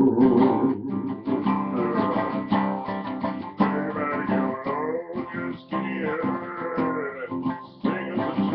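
Acoustic guitar being played, a steady run of plucked notes and strums.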